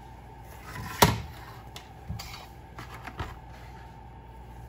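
Plastic clicks and knocks from a toy coffee maker and its small plastic cup being handled: one sharp clack about a second in, then a few lighter taps.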